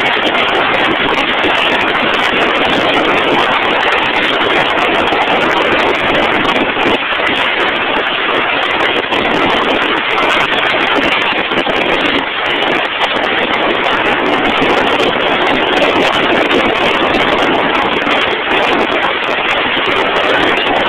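Steady, loud mechanical noise with no clear pitch or rhythm, like heavy machinery running continuously.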